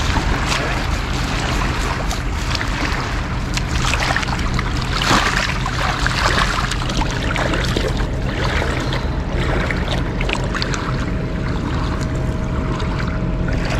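Steady wind rushing over the microphone with a low rumble and water noise, broken by a few light clicks.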